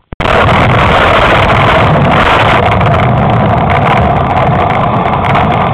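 Loud, steady rumble of a moving vehicle carrying a low-mounted camera: engine, road and wind noise buffeting the microphone. It starts abruptly right at the beginning.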